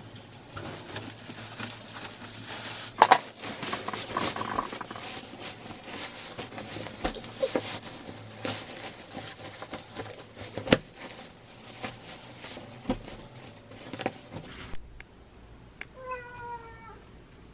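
Bed linen rustling and flapping as a mattress cover and pillowcase are pulled on, with a few sharp knocks. Near the end a domestic cat meows once, a short call falling slightly in pitch.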